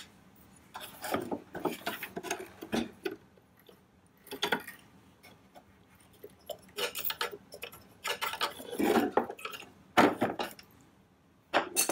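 Plastic housing and small metal parts of a Toro Power Shovel electric snow shovel being handled during disassembly: irregular clicks, knocks and rattles, with a sharp click about ten seconds in.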